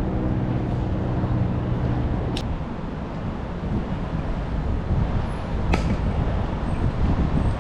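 A steady motor-vehicle engine hum that stops about two seconds in, over low wind rumble, with two sharp clacks about three seconds apart.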